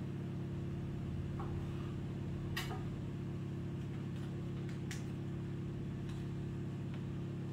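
A steady low hum with a few light, separate clicks and taps from a knife cutting a piece of bread on a wooden board and the bread being pressed into a small baking mould.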